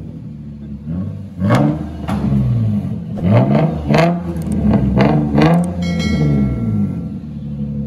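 2003 Infiniti G35's VQ35DE V6 with muffler and resonator deleted, catalytic converters kept, being revved in the bay: it idles, then takes about seven quick throttle blips that each rise and drop back, before settling to a rumbling idle.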